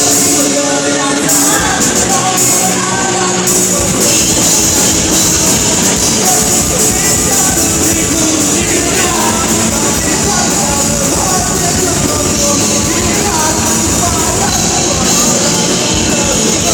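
A rock band playing live, loud, with singing.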